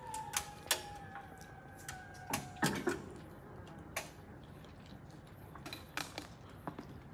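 Railway level crossing barriers finishing their descent: a faint steady tone fades out over the first two and a half seconds. Scattered sharp clicks and clunks follow, loudest about two and a half seconds in as the booms settle down.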